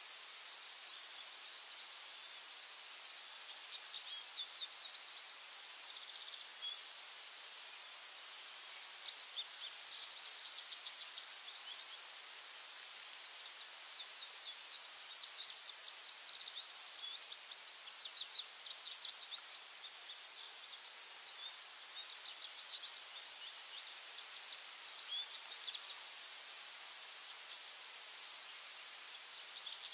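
Outdoor nature ambience: a steady high-pitched hiss with many quick, high chirps and trills from small birds or insects, coming in clusters over the hiss.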